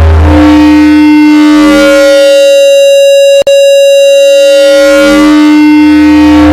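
A loud, sustained siren-like electronic tone, steady in pitch with many overtones, that cuts out for an instant about three and a half seconds in.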